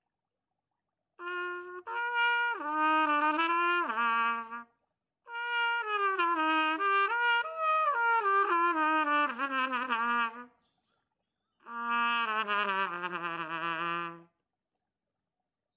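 Solo trumpet playing a slow melody in three phrases, each stepping down in pitch. The last phrase ends on a low note held with vibrato.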